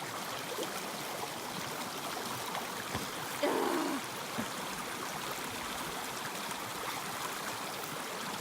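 Steady rushing of flowing water, like a nearby creek, with one short louder sound about three and a half seconds in.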